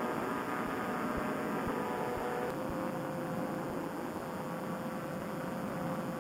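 Vittorazi Moster two-stroke paramotor engine and propeller running steadily in cruise flight, a constant drone at an even pitch.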